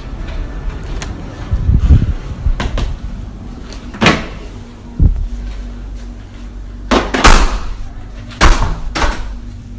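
A series of sharp knocks and clunks, typical of doors being opened and shut, over a low rumble from the moving phone.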